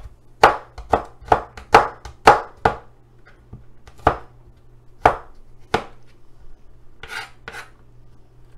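Chef's knife chopping garlic cloves on a plastic cutting board: a quick run of about seven sharp knocks in the first three seconds, then three more, spaced about a second apart.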